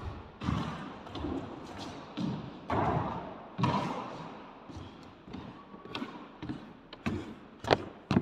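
Athletic shoes thudding and scuffing on a squash court floor as a player does a footwork movement drill: irregular footfalls and quick stops, with two sharper knocks near the end.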